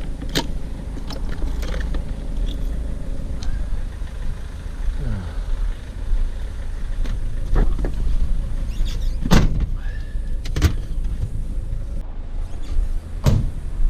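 Steady low vehicle rumble with several sharp knocks and rattles, the loudest about nine and a half seconds in.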